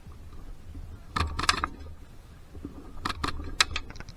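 Airsoft rifle firing two quick strings of sharp shots, about four about a second in and about five more a little after three seconds.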